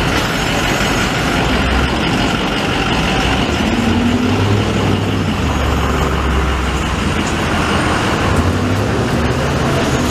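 Street traffic: a steady wash of city noise with the low engine rumble of a heavy vehicle such as a truck or bus, strongest from about four to seven seconds in.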